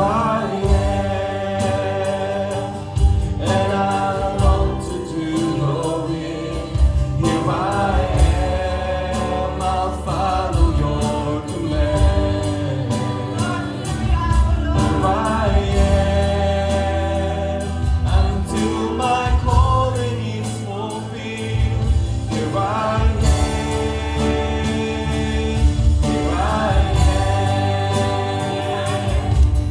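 Live gospel worship music: voices singing a melody over a band with sustained chords, bass and a steady drum beat.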